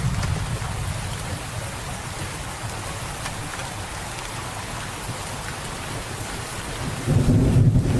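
Steady rain hissing. A low rumble of thunder dies away over the first two seconds, and a fresh, louder thunder rumble breaks in suddenly about seven seconds in.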